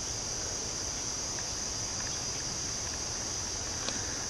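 A steady, high-pitched chorus of insects, such as crickets, that goes on without a break.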